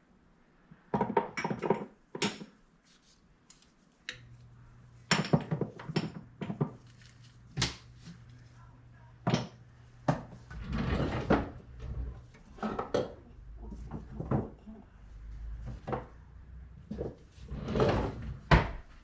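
Kitchen clatter while cooking: utensils and containers knocking and clicking against pots and the counter, with a couple of longer stretches of scraping and rustling. A low steady hum comes on about four seconds in.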